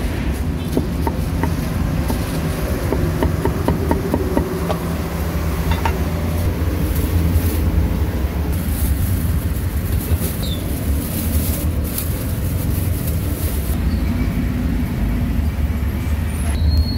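Steady low rumble of street traffic, with a few light cleaver chops on a chopping board in the first second or so.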